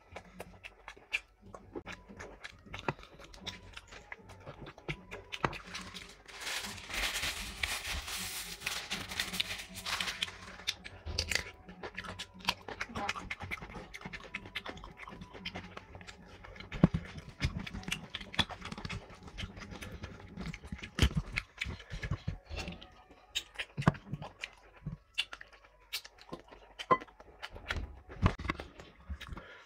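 Close-miked eating: chewing and lip-smacking with many short wet clicks as fried fish and meat are eaten by hand, with a louder, noisier crunching stretch about six to ten seconds in.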